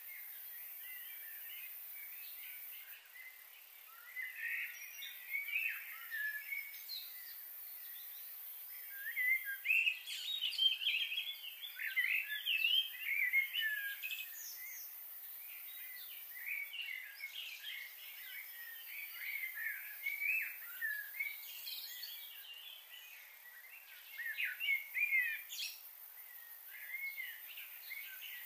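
Many small birds chirping and twittering over a faint steady hiss, busier and louder from about nine seconds in.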